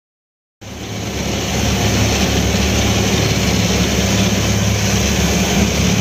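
Boat engine running steadily at speed, with water rushing past the hull and wind on the microphone; it starts suddenly a little under a second in, after silence.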